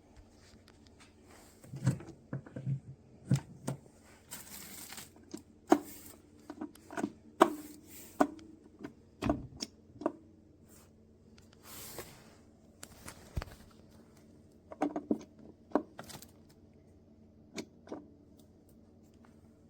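Things being handled: irregular clicks and knocks, with two short rustling noises.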